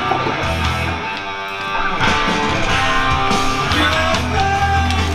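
Music with guitar and a steady bass.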